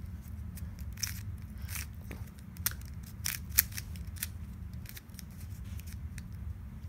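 Cheap 30mm plastic 3x3x3 picture cube being twisted by hand: irregular sharp plastic clicks as its layers are turned, over a low background hum.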